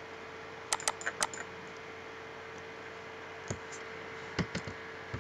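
Computer keyboard and mouse clicks while editing a form in a programming IDE: a quick run of about five clicks about a second in, then a few single clicks later, over a faint steady hum.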